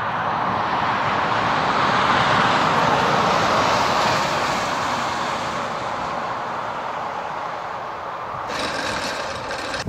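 A road vehicle passing, its tyre and road noise swelling over the first few seconds and slowly fading away, with a brief hissier stretch near the end.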